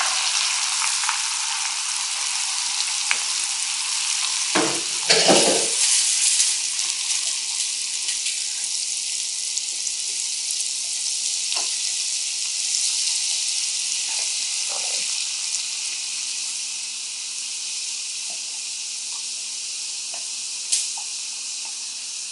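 Very hot canola oil sizzling and bubbling over chili, paprika, sugar and sesame seeds in a glass measuring cup, stirred with a metal spoon. The sizzle slowly dies down as the oil cools, with a louder stir of the spoon against the glass about five seconds in.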